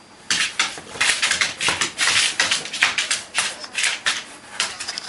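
Quick, irregular scratchy scuffling, several noises a second, as a dog tussles with a plush toy on a hardwood floor, shaking and dragging it.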